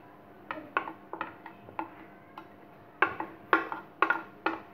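Wooden spatula scraping and knocking against a ceramic plate as grated bottle gourd is pushed off it: a run of irregular sharp clicks, louder and closer together in the last second and a half.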